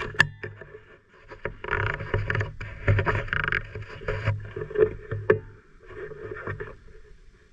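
Irregular rustling and scuffing with several sharp knocks, fading to faint rustle after about five and a half seconds.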